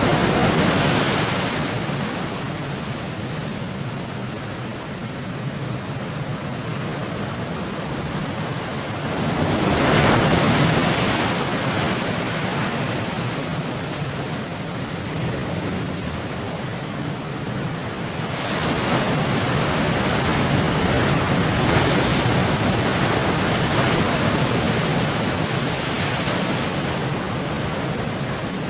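Big sea waves rushing and crashing against a bagan fishing boat, with wind buffeting the microphone. The roar swells up about a second in, again around ten seconds in, and stays high from about eighteen seconds on.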